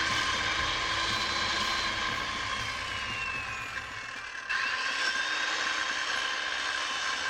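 Small high-speed electric tool motor running with a whine. Its pitch slides down over a couple of seconds as it works under load, then it starts again about four and a half seconds in and the whine climbs back up.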